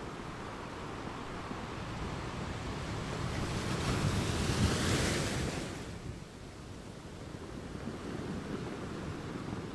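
Ocean waves: a surge of surf swells up, peaks about five seconds in, then falls away quickly and washes on more softly.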